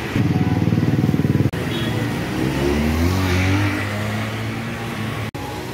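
A road vehicle's engine runs loudly with a fast pulsing beat. It then climbs in pitch as the vehicle accelerates, and fades off somewhat near the end.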